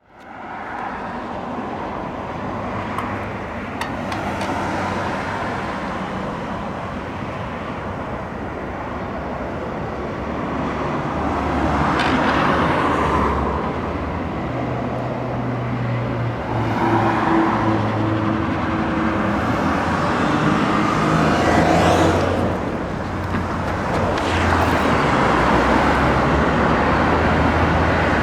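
Road traffic: a steady hum of tyres and engines, with vehicles passing close by several times, each pass swelling and fading.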